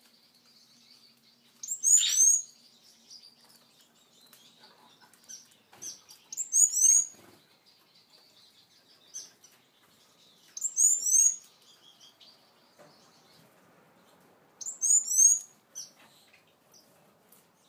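Caged finches calling: four short bursts of high, rapid chirps, each about a second long, coming roughly every four seconds.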